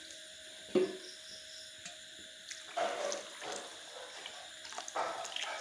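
A metal ladle stirring thin chicken curry gravy in an iron kadai: irregular liquid sloshing with a few short clinks against the pan.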